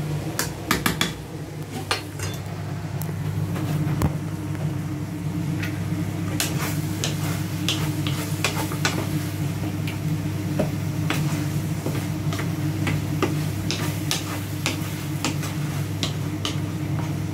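A cooking spoon clinking and scraping against a pot as a simmering dish is stirred: irregular short clinks over a steady low hum.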